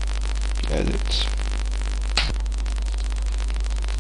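Steady mains hum and static buzz from the microphone line, with one short sharp click about two seconds in.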